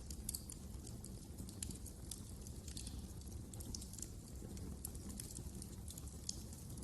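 Wood fire crackling: irregular small pops and snaps over a low, steady rumble.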